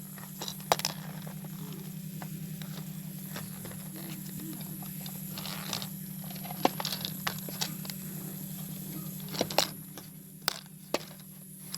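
Small plastic toys being handled and set down, giving scattered light clicks and taps over a steady low hum.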